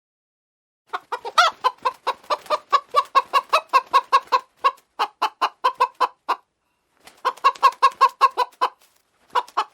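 Chickens clucking in a fast string of short, loud clucks, about five or six a second, starting about a second in and breaking off twice briefly before resuming.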